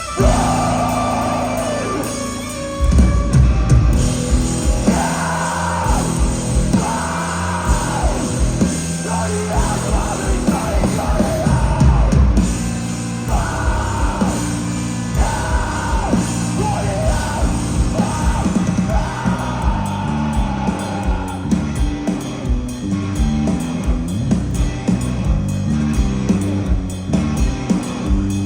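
A post-hardcore rock band playing live, with a singer's vocals over distorted guitars and drums. The full band with heavy drums crashes in about three seconds in.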